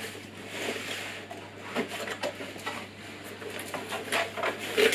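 Cardboard box flaps being folded open and the packaging inside handled: irregular rustling and scraping of cardboard with a few light knocks, the loudest near the end.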